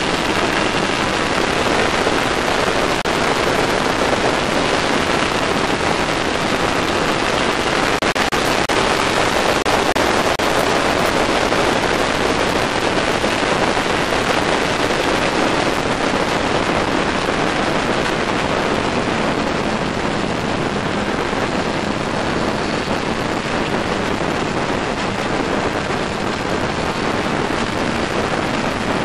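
Steady wind rush over a microphone on a motorcycle riding at speed, with the motorcycle engine running underneath, mostly buried in the wind.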